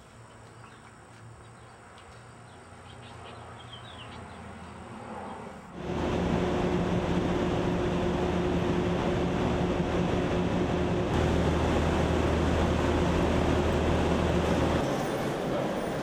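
Subway train in a station: a steady hum over loud, even noise that comes in suddenly about six seconds in, after quieter background ambience.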